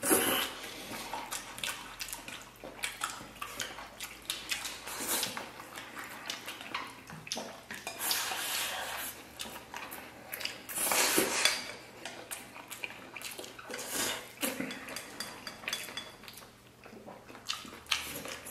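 Chopsticks clicking and scraping against ceramic bowls as two people eat quickly, with bursts of slurping and chewing as food is shovelled from bowls held to the mouth.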